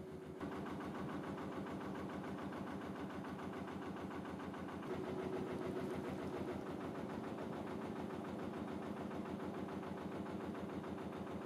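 Narrowboat engine running steadily as the boat cruises along the canal, a fast even chugging beat.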